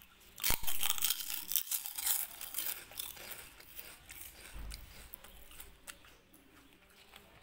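Kittens chewing Kurkure, a crunchy corn snack, with dense crackly crunching. It starts about half a second in, is loudest for the next couple of seconds, then thins out to softer chewing.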